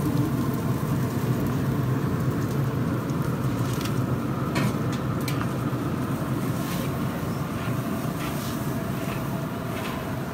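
Steady low rumbling noise, with a few light clicks scattered through the middle and later part.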